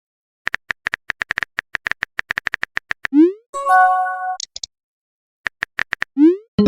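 Phone text-messaging sound effects: quick runs of keyboard typing clicks, then a short rising pop and a brief chime of several steady tones, then more typing clicks and another rising pop near the end.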